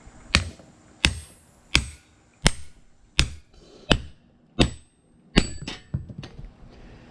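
Hand hammer striking hot steel on an anvil to cut through the bar: eight even blows, about three every two seconds, each with a short metallic ring, then three lighter, quicker taps near the end.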